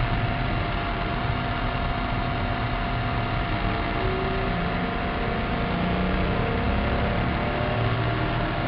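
Maserati Cambiocorsa's V8 engine and tyre and road noise heard from inside the cabin while the car is driven at speed, a steady drone.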